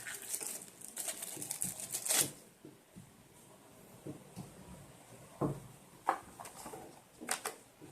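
Packaging rustling and crinkling as items are handled out of an unboxed tablet's box, for about the first two seconds, then a few light knocks and clicks as things are set down.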